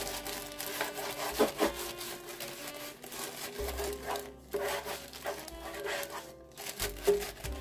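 Butter-filled plastic baggie rubbed back and forth against the inside of a metal loaf pan to grease it: a repeated scrubbing rub of plastic on metal.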